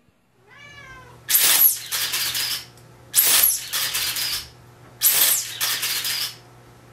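A cat meows once, briefly. Then come three loud bursts of hissing noise, each just over a second long and about two seconds apart.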